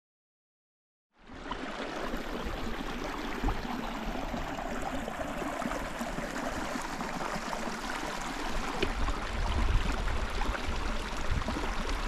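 Silent for about a second, then a small moorland stream running steadily, with wind rumbling on the microphone, heaviest a little before the end.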